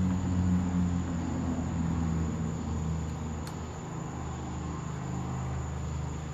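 The small two-stroke engine of a Husqvarna 323L string trimmer running steadily at low speed, its pitch and loudness easing slightly after about a second and a half.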